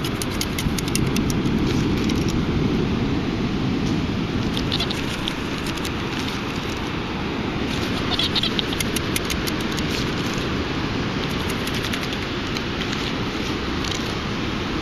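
Sand rattling and crackling in a perforated metal beach sand scoop as it is dug and sifted, over a steady low rush. Two brief high tones sound about a third and just over halfway through.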